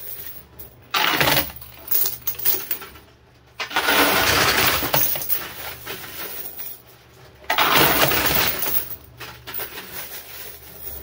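Quarters clattering and cascading on a coin pusher machine, in several loud bursts of a second or more each, over a steady low hum.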